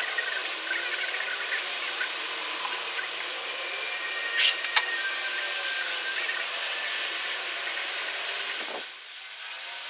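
Blue painter's tape being pulled off the roll and smoothed down by hand along a tabletop's edge: a continuous crackling peel, with a sharp snap about four and a half seconds in.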